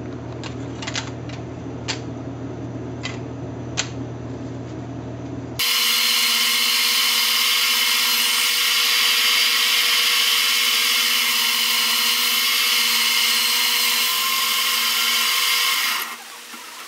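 A steady low hum with a few sharp clicks, then about five and a half seconds in a band saw starts cutting through plywood, a loud steady whine that stops abruptly near the end.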